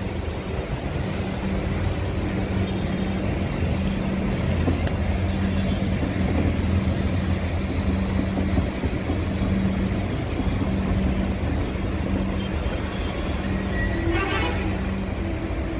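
Steady electrical hum from a standing Vande Bharat Express electric trainset's onboard equipment, with a brief hiss near the end.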